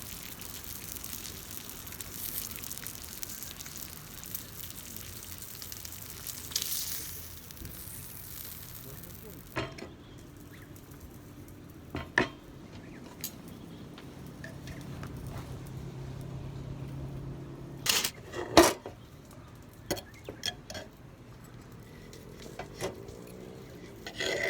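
Camp cooking: food sizzling in a pot for the first ten seconds or so, then metal utensils clinking and knocking against the cookware several times, the loudest knocks about three quarters of the way through.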